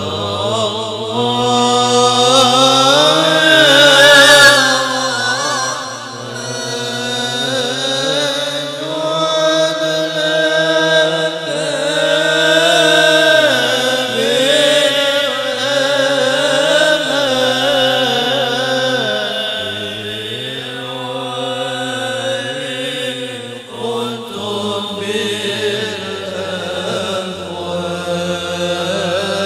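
Devotional Arabic verses chanted in long, slow, melismatic melodic lines, without a break; the chant swells to its loudest about four seconds in.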